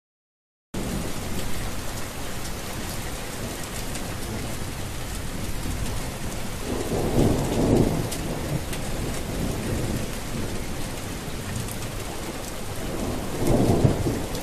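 Steady rain coming in suddenly about a second in, with two low rumbles of thunder, one about halfway through and one near the end.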